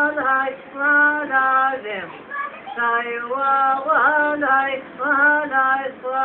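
A high voice singing a melody in long held notes, with slides between them and short breaks for breath.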